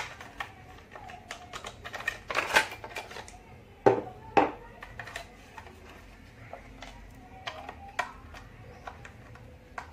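Clicks and knocks of a plastic toy train locomotive being handled and taken apart, with a cluster of rattles about two seconds in and two sharp knocks about four seconds in. Later come fainter small clicks as a small screwdriver works a screw in the underside.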